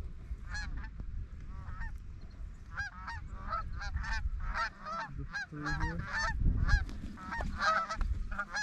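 Many Canada geese honking, a flock calling in quick, overlapping short honks that grow busier toward the end, with wind rumbling on the microphone.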